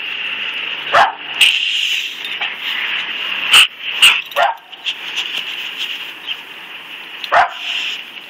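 A dog rolling on her back in grass makes short vocal sounds, a handful of brief yips and grunts spread through, over a steady high-pitched hiss.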